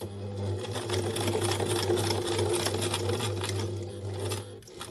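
Sewing machine running steadily as it stitches a diagonal line through the fabric layers of a tote bag handle, then stopping near the end.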